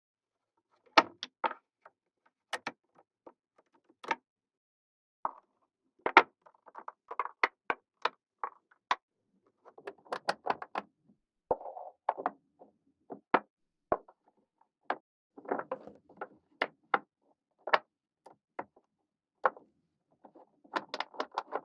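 Small magnetic balls clicking as they snap onto one another, in irregular single clicks with a few short runs of rapid rattling clicks.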